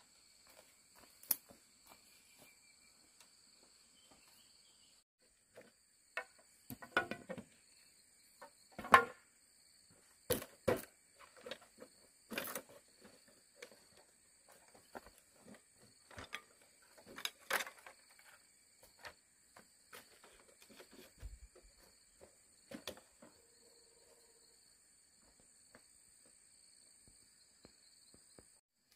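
A steady, shrill insect chorus keeps up throughout. Over it come irregular knocks and clatters from bamboo being handled and worked, bunched in the middle of the stretch, with the sharpest knock about nine seconds in.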